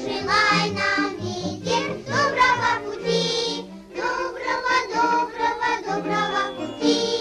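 A song for children: voices singing a melody over instrumental accompaniment.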